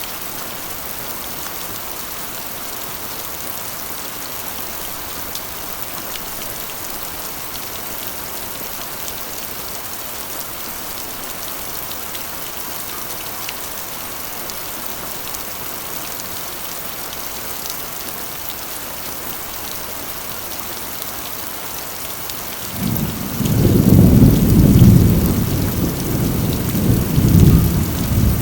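Steady heavy rain drumming on a corrugated iron roof. Near the end a low rumble of thunder rolls in for several seconds, louder than the rain.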